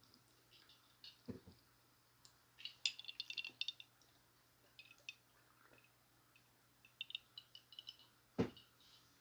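Close-miked chewing of a chicken taco: two runs of quick, small, moist clicks and crunches, about three seconds in and again near the end, with a dull thump shortly before the end.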